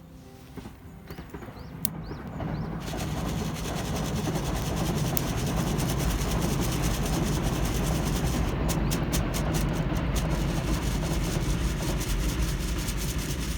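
Coffee beans rattling steadily as they are shaken in a hand roaster, starting after a few scattered clicks about three seconds in, near the end of a campfire roast.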